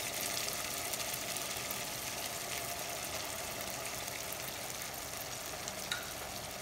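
Sardines in tomato sauce sizzling and simmering in a frying pan, a steady hiss with faint scattered crackles.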